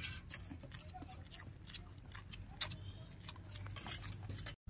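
Faint scattered clinks and scrapes of a metal spoon against a stainless steel mixing bowl.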